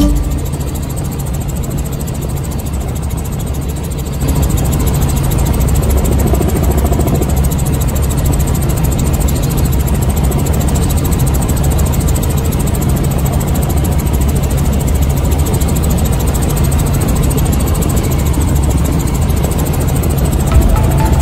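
Helicopter in flight: steady engine and rotor noise, a low rumble that gets louder about four seconds in.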